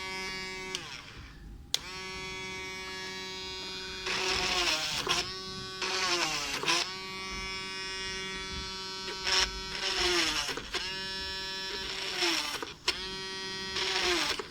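Small DC motor of a homemade table saw and drill machine whining at a steady high pitch. It is switched off and on again and again: each time the whine sinks in pitch as it spins down, then starts again suddenly. Louder, rougher stretches come around four, six, nine to ten and thirteen seconds in.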